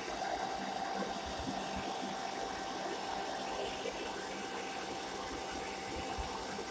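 Handheld hairdryer running steadily on a low setting: an even rush of air with a faint steady hum.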